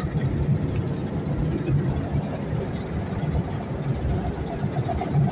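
Combine harvester running steadily while harvesting rice paddy, heard from the driver's seat: a continuous engine drone with the machinery working.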